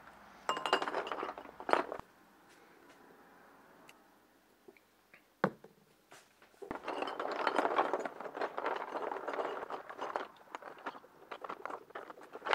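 Hands working in a bucket of soapy foam while washing glass bottles, a crackly rustling of suds. It comes in a short stretch near the start and a longer one of about six seconds from the middle on, with a single sharp click in the quiet between.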